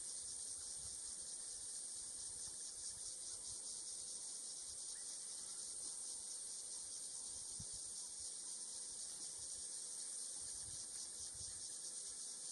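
Steady, high-pitched chorus of insects, an even buzz with a fine, rapid pulse.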